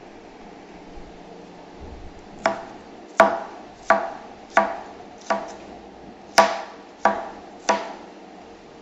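A cleaver slices pineapple against a wooden cutting board. There are about eight sharp chops, roughly one every two-thirds of a second, starting a couple of seconds in.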